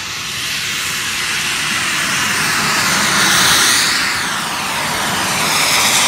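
Jet Italia 220N model jet turbine of a 66% scale BD5J Microjet at takeoff thrust, a hissing jet roar that grows to a peak about three and a half seconds in as the jet rolls and lifts off past, then swells again near the end.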